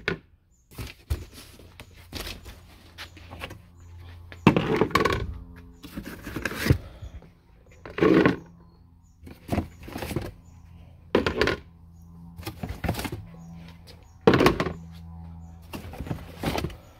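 Hard plastic baseball batting helmets being set down and shifted on a table: a string of irregular plastic knocks and thunks, a dozen or so, over a steady low hum.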